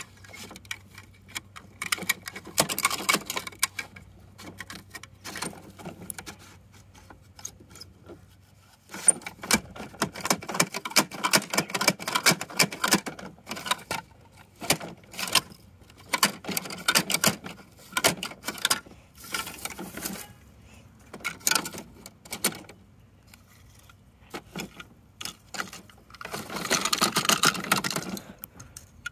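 Plastic toy side-loader garbage truck's lifting arm being cranked by hand: runs of rapid plastic clicking and rattling with short pauses between them. Near the end, a louder rattle as small toy trash tumbles from a plastic bin into the hopper.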